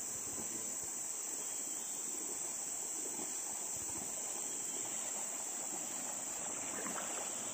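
Steady high-pitched drone of tropical forest insects over the even rush of river water.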